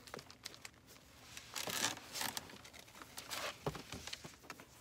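Paper packaging crinkling and rustling in irregular bursts as a sneaker is handled and turned in the hands, with scattered small clicks and a soft bump about three-quarters of the way through.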